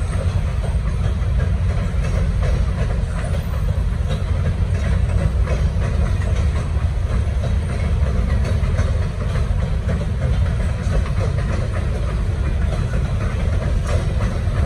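Railroad hopper cars rolling across a steel girder bridge: a steady, heavy rumble with a continuous patter of wheel clicks and rattles.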